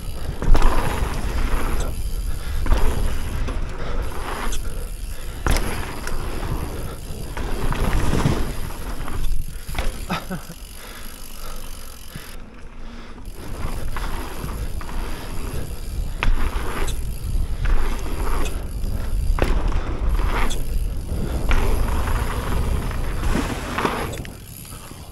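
Mountain bike ridden fast through a dirt jump line: tyres rolling over packed dirt with a heavy low rumble, and sharp knocks scattered throughout as the bike lands jumps.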